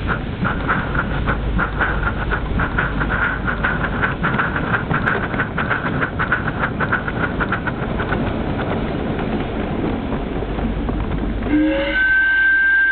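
Live steam model LMS Black Five 4-6-0 locomotive running, its exhaust chuffing in a quick, even beat over the rumble of wheels on the track. About a second before the end its steam whistle blows one loud, sustained note.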